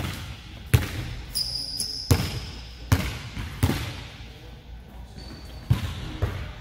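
A basketball being dribbled on a hardwood gym floor: single bounces roughly every three-quarters of a second, each ringing in a large hall, with a gap of about two seconds before two more thuds near the end. Brief high squeaks come between the bounces.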